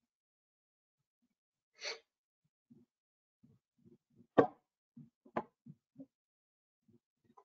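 A short breath into a microphone about two seconds in, then two sharp clicks about a second apart, the first the louder, with faint low taps in between.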